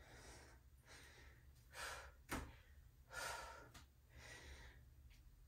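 Faint breathing of a woman exercising: a few soft breaths in and out, the clearest about two and three seconds in, with one sharp click between them.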